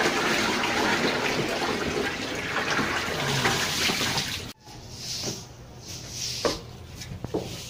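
Water running from a tap into a plastic bucket: a steady rush that cuts off abruptly a little over halfway through. Then a few soft broom swishes and light taps on the floor.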